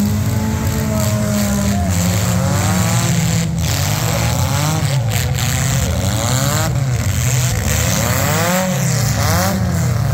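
Several four-cylinder demolition derby cars' engines revving at once, their pitches rising and falling as the drivers throttle up and back off.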